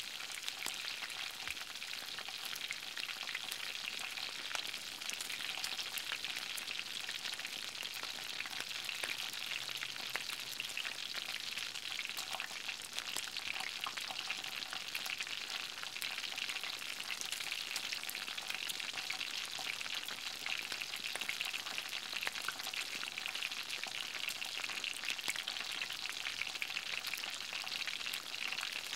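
Beef burger patty sizzling on a flat-top griddle: a steady crackle of fine pops.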